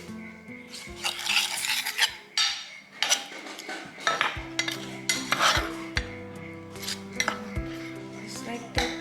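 Metal utensil clinking and scraping against a pan and dish as the spices are tipped into the pan, in irregular knocks and scrapes, with background music.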